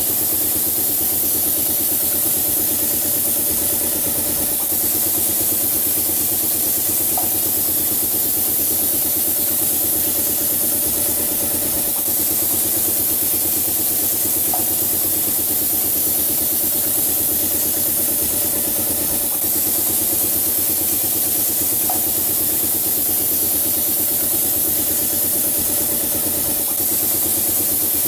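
Pneumatic spray gun hissing steadily as it sprays paint, over the steady hum of the air compressor feeding it. A short, brief chirp recurs about every seven seconds.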